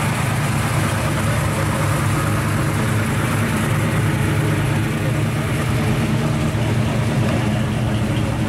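Plymouth Belvedere's engine running at low revs, a deep, steady exhaust note as the car rolls slowly past and pulls away.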